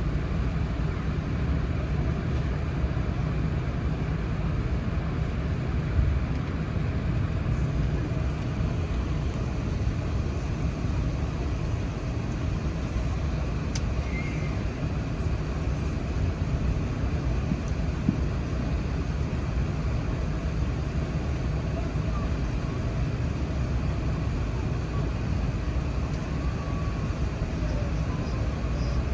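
Steady low rumble inside the cabin of an Airbus A380 on the ground, from its Rolls-Royce Trent 900 engines at low power and the cabin air conditioning, holding an even level throughout.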